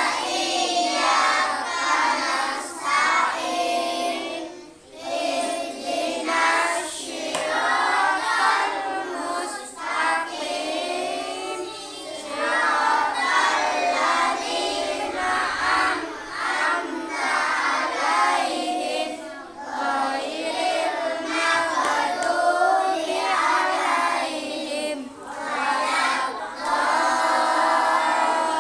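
A group of children singing together in unison, in melodic phrases a few seconds long separated by brief pauses.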